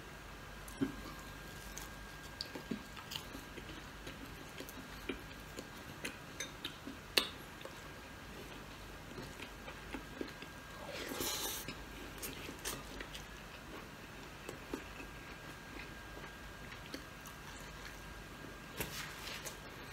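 Faint chewing and biting, with small clicks of mouth and fingers, as a man eats crispy fried milkfish and rice by hand. A longer, louder noisy sound comes about eleven seconds in.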